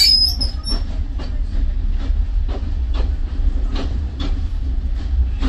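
Train running along the track: a steady low rumble with the clickety-clack of wheels over rail joints every half second or so, and a brief high squeal right at the start.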